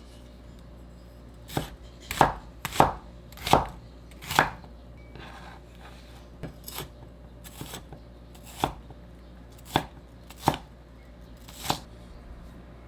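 Kitchen knife chopping vegetables on a cutting board: about a dozen separate, unhurried strokes at uneven spacing, the heaviest in the first few seconds.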